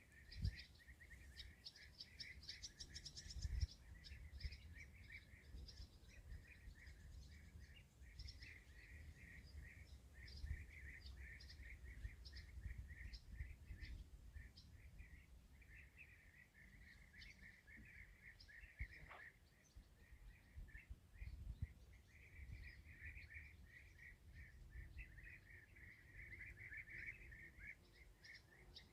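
Small songbirds chirping continuously in rapid, overlapping calls, over a faint low rumble of wind on the microphone, with two soft knocks about half a second and three and a half seconds in.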